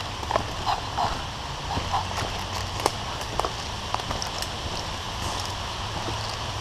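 Footsteps moving quickly through woodland, with irregular crunches and snaps of leaf litter and twigs underfoot over a low steady rumble.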